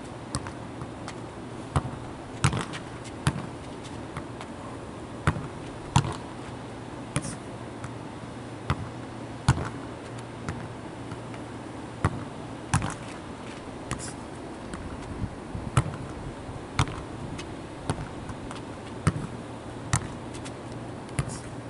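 Soccer ball being kicked up and controlled on hard asphalt: irregular, sharp knocks of foot on ball and ball bouncing on the pavement, about one to two a second.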